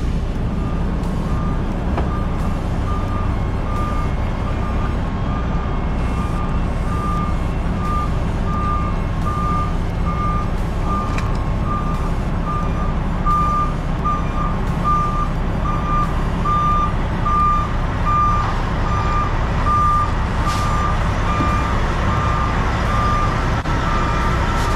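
A truck's reversing alarm beeping in an even, steady rhythm over the low rumble of a diesel semi-truck engine, heard from inside the cab.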